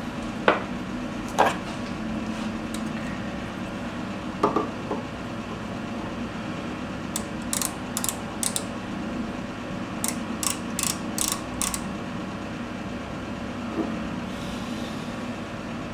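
A small metal lathe's three-jaw chuck being handled and turned by hand: a few metal clinks, then two runs of sharp, evenly spaced clicks, about two or three a second, over a steady low hum.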